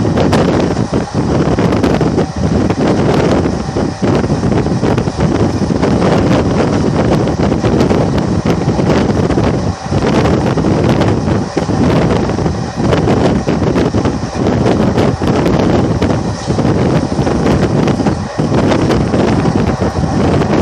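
Wind buffeting the microphone out of the window of a moving passenger train, over the steady running noise of the coach's wheels on the track. It is loud throughout, with brief dips every second or two.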